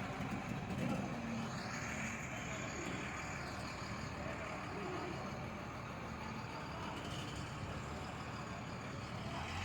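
Steady rumble of motor vehicles in an outdoor urban soundscape.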